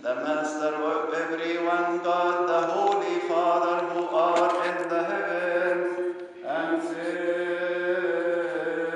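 A male voice chanting a Coptic liturgical melody in long, drawn-out held notes, breaking for breath about six and a half seconds in.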